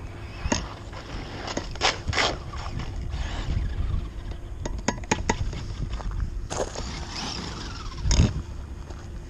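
Loose gravel crunching and scraping close to the microphone in a series of sharp crunches, the loudest near the end, over a low wind rumble.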